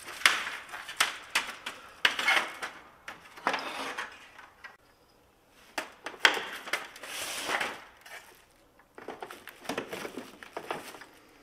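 Plastic grille and trim parts being unclipped and handled: a string of sharp clicks, knocks and short scraping rattles, with brief pauses between.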